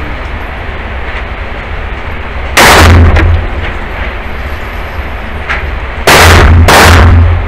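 Three 9mm pistol shots echoing in an indoor range: one about two and a half seconds in, then a pair less than a second apart a little after six seconds.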